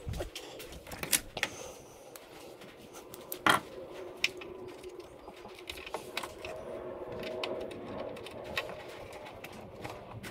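Irregular small clicks and taps of hands handling plastic rudder hardware and a wire pushrod on a wooden workbench, the sharpest knock about three and a half seconds in. A low steady hum sits underneath and grows a little louder in the second half.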